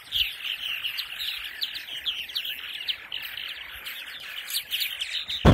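A colony of purple martins chattering: a dense, continuous run of quick chirps. A short thump near the end.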